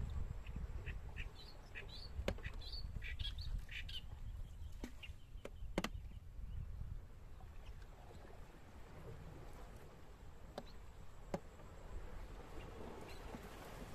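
Small birds chirping in a cluster of short calls during the first few seconds, over a low rumble. A few sharp knocks, the loudest sounds, come from the wooden punting pole striking the boat.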